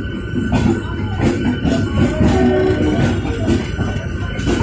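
Train coaches rolling slowly over station tracks: a steady rumble with a jingling metallic rattle, irregular wheel clicks over rail joints and points, and a steady high whine.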